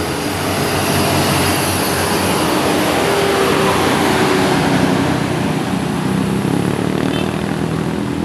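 Diesel engine of a large intercity bus labouring up a steep climb as it passes close by, loud and steady.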